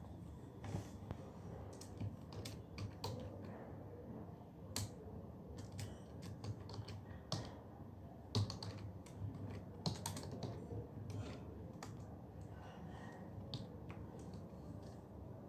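Typing on a computer keyboard: a steady run of irregular key clicks, with a few louder keystrokes scattered through it.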